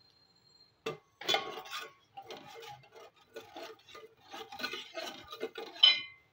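Steel spoon stirring sugar into milk in a steel pan: irregular scraping and clinking against the pan, with a louder ringing clink near the end.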